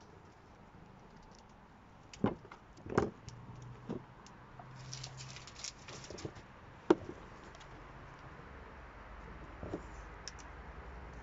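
A handful of sharp knocks and clanks, the loudest about seven seconds in, with scuffing and scratching between them: savannah cats shifting in and around a plastic bucket with a metal wire handle.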